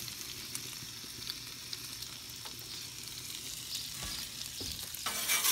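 Bacon, ham and turkey sizzling steadily on the hot steel plate of a Blackstone propane flat-top griddle, with a few faint clicks. The sizzling grows louder briefly near the end.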